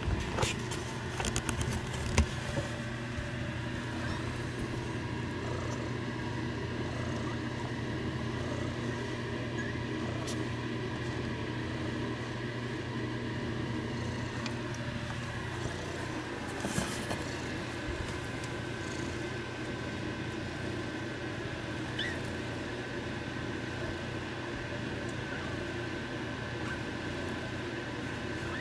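A steady machine hum made of several fixed tones. A few small clicks and knocks come in the first two seconds, and again about ten and seventeen seconds in.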